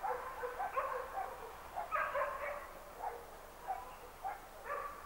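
A dog whining in short pitched cries, about three a second.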